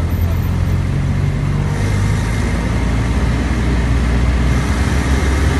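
Steady low drone of a car moving in slow traffic, its engine and road noise heard from inside the cabin. Road hiss grows louder about two seconds in.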